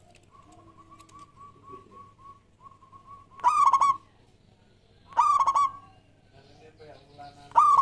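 Zebra dove (perkutut) singing: a soft, quick run of repeated notes, then three loud bubbling coos about two seconds apart. Fainter, lower calls from other doves sound underneath.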